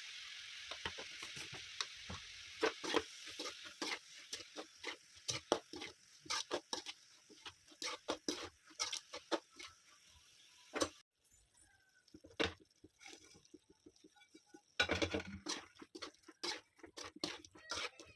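Spatula stirring fried rice in a hot pan: a sizzle that fades over the first few seconds under a run of sharp scrapes and taps against the pan. The strokes break off abruptly about eleven seconds in and start again a few seconds later.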